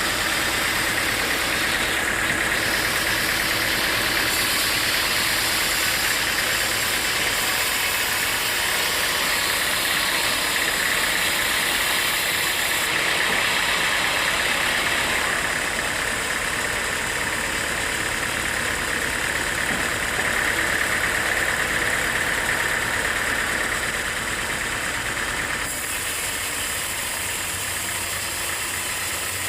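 Sawmill machinery running steadily: an engine-driven saw with a continuous hum and hiss, a little quieter from about 24 seconds in.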